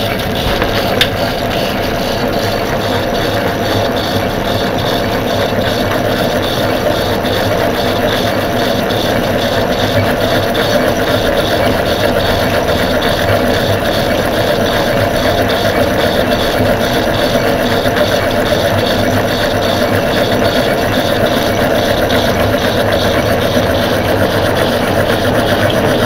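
Drummond lathe running under power, its gear train and drive giving a steady mechanical whir while it turns a brass bar.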